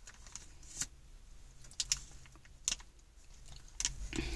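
A few faint, sharp clicks and rustles about a second apart, the sound of small objects being handled, over a low steady hum.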